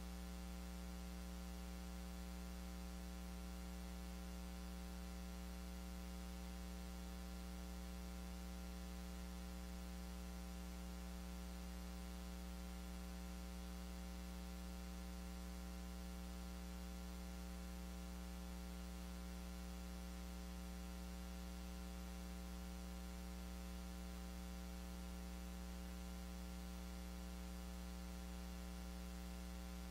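Steady electrical mains hum, a low buzz with evenly spaced overtones, over a faint hiss that does not change throughout.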